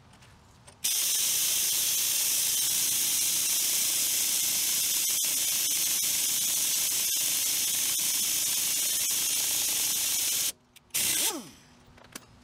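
Pneumatic impact wrench running in one long steady burst with a loud air hiss, drawing a new wheel stud into the hub through a lug-nut stud installer. It stops suddenly, and a brief second burst follows near the end.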